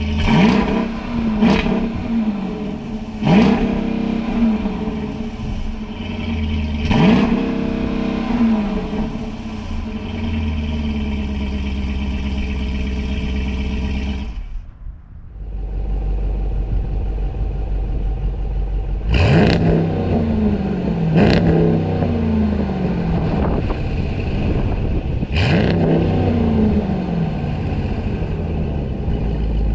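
A Dodge Durango R/T's 5.7-litre HEMI V8 idles through its exhaust and is blipped in quick throttle revs that rise sharply and fall back to idle. There are four revs in the first half, a short break about 15 seconds in, then three more.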